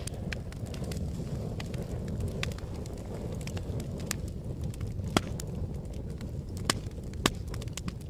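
Fire crackling: a steady low rush of burning with irregular sharp pops and snaps, the loudest a little past halfway and twice more near the end.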